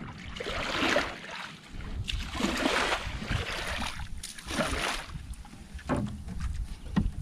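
Water swishing and sloshing around a small fishing boat in repeated swells about every two seconds, with a light knock near the end.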